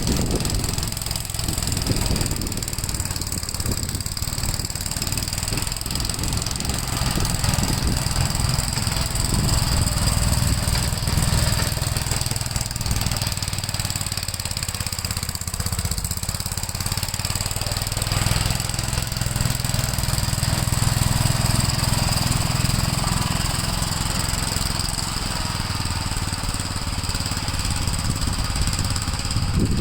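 Gravely L8 walk-behind tractor's engine running steadily, with a thin steady whine high above the engine note.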